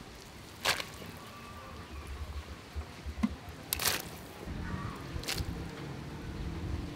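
Pot of fish soup simmering over a charcoal fire, with a low bubbling rumble that grows louder about halfway through. Three sharp clicks stand out.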